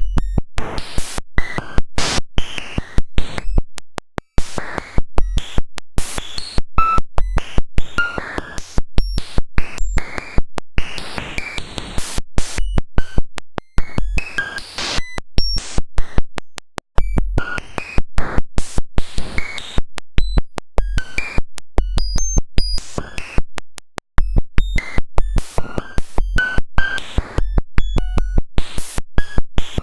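Raw data sonification: a cellular automaton's population count, generation by generation, written directly as audio samples, giving harsh, irregular digital clicking and buzzing noise with short pitched blips and low thumps.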